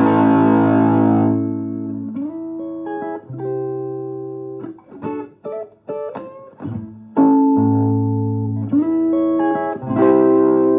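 Guitar played through a Vermona Regent 300 K: a full chord rings out and fades, then single notes and short picked phrases follow. A loud chord is struck about seven seconds in, and another near the end.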